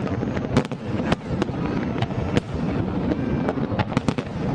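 Aerial fireworks bursting: about a dozen sharp bangs at irregular intervals over a continuous low rumble of further bursts.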